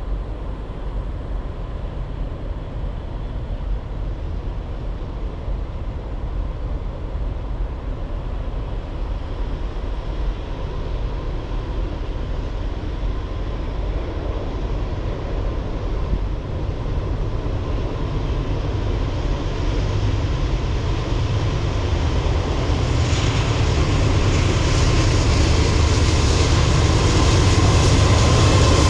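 Approaching Norfolk Southern freight train with three diesel locomotives: a low rumble that grows steadily louder as the train nears, getting much fuller over the last several seconds.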